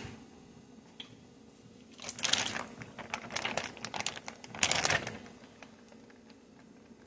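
Plastic zipper storage bag holding meat in marinade crinkling as it is handled and lifted, in two bursts of crackling about two seconds in and about five seconds in.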